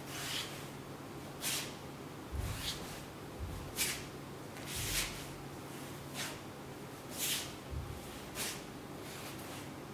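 A wooden jo staff whooshing through the air in a series of swings and strikes, about one a second, with the dull thud of bare feet stepping on tatami mats now and then.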